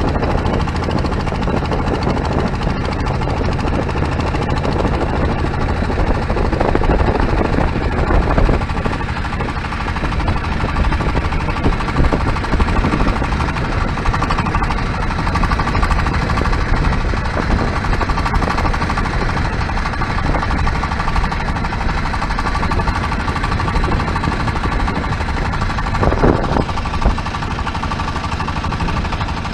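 Engine of a small wooden boat running steadily under way, with a constant engine note heard from on board.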